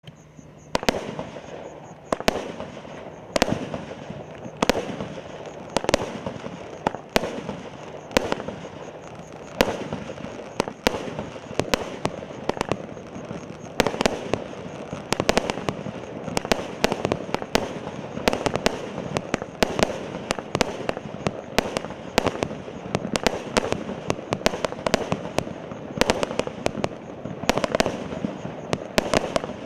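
A 100-shot consumer fireworks cake firing shot after shot, each shot a sharp report, with a steady crackling hiss of bursting stars in between. The shots come about once a second at first and more often later on.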